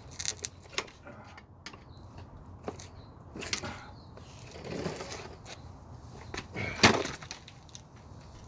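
Tools knocking and scraping against a Dana 35 rear differential cover that is stuck fast on its sealant. There are light knocks in the first second, scraping in the middle, and one loud sharp knock near the end.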